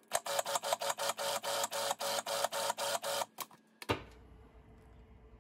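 Food processor running on a thick chocolate avocado pudding mixture, its motor noise beating rapidly and evenly at about seven pulses a second for about three seconds before it stops. A single click follows as the lid comes off.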